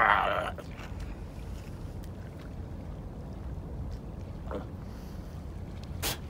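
Steady low rumble of wind buffeting the microphone. A short throaty sound right at the start, and a sharp spit about six seconds in.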